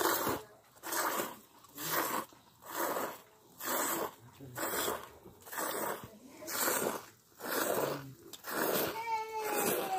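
Buffalo being milked by hand into a steel bowl: rhythmic hissing squirts of milk hitting the metal, about three every two seconds as the hands alternate. A short high call with a falling pitch near the end.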